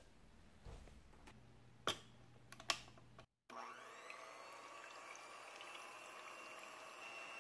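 A few sharp clicks, then an electric hand mixer starts about halfway through, its motor whining up to speed and running steadily as its beaters whisk egg whites in a glass bowl.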